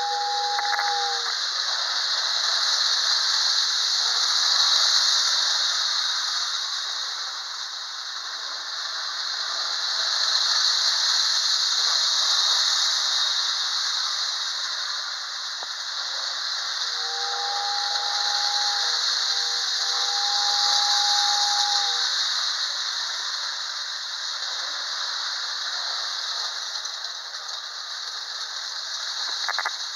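The built-in motor-blown whistle of a 1930s Girard whistling train station sounds a two-note whistle that stops about a second in and sounds again for about five seconds just past the middle, with a short break. Under it a steady airy hiss swells and fades, and a tin-plate toy train runs on its track.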